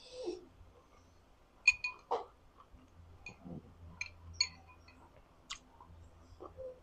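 Quiet eating: soft chewing, with about half a dozen sharp, briefly ringing clicks of a metal spoon and chopsticks against a glass bowl.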